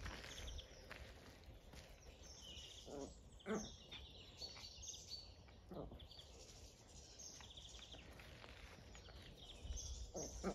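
Faint outdoor farm ambience: small birds chirping now and then over a low wind rumble, with a few brief faint calls in the distance.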